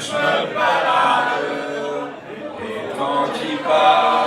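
A group of voices singing together, recorded with poor sound quality.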